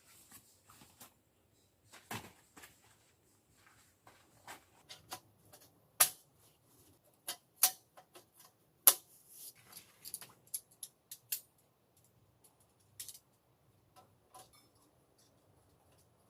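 Irregular short clicks and knocks of objects being handled, three of them sharper and louder than the rest in the middle.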